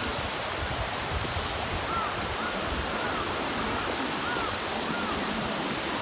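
Steady rush of a shallow mountain stream running over rocks beneath a footbridge.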